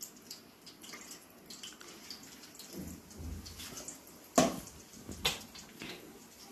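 Marinated chicken pieces frying in hot oil in a steel kadai, sizzling with many small crackles. Two louder sharp knocks come past the middle, about a second apart.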